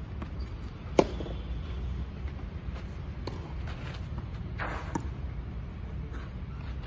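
Tennis rally on a clay court: a racket strikes the ball with a sharp pop about a second in and again near five seconds, with a fainter hit between. Just before the second loud hit, shoes scuff briefly on the clay, over a steady low rumble.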